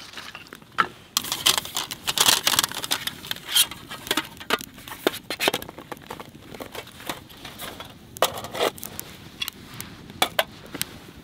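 A busy run of sharp clicks, scrapes and light knocks for a few seconds, then scattered ones: camp gear handled on gravel, including a small folding metal table being unfolded and set down.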